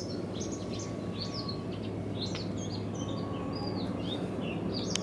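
Birds chirping and whistling in quick, short rising and falling notes, over a steady low hum.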